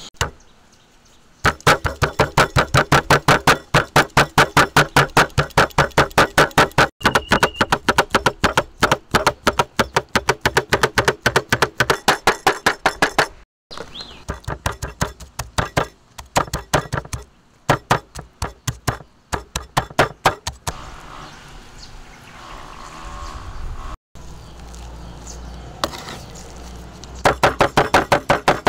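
Cleaver chopping red chilies and fermented fish paste on a wooden chopping board: rapid, evenly spaced strokes about five a second, in several runs with short breaks.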